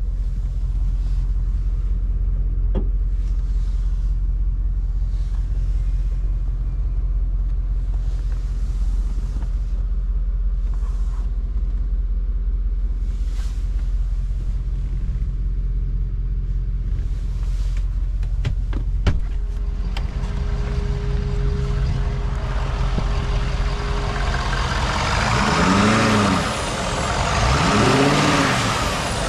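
A 2011 Ford F350's 6.7 L Power Stroke V8 turbo-diesel running at idle with a steady low hum. Near the end its pitch rises and falls twice.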